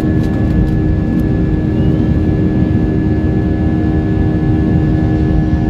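Airbus A320 jet engines at takeoff thrust, heard from inside the cabin over the wing during the takeoff roll and liftoff. A steady, loud rumble with several steady humming tones.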